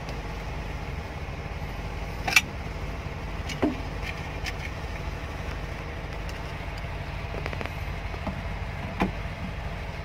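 Steady low engine rumble, like a machine idling, with a few sharp knocks from hands working among parts: the loudest about two and a half seconds in, others near four and nine seconds.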